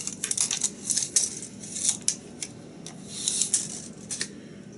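Steel tape measure being pulled out and handled against a wooden bowl: light metallic clicks and scrapes in irregular clusters.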